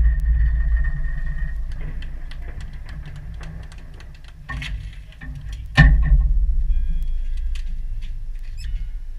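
The low rumble of a field gun's blank shot fading away. About six seconds in, a second sharp bang sets off another low rumble that fades in turn.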